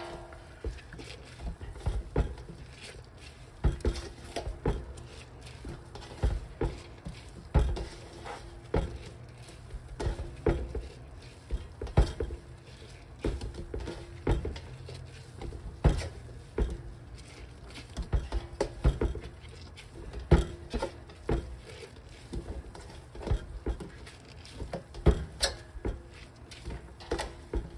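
Hands kneading and squeezing a wet mass of salted red shiso leaves against a stainless steel tub, a second salt-rub to press out the purple juice. Irregular wet crackles and knocks against the metal, about one or two a second.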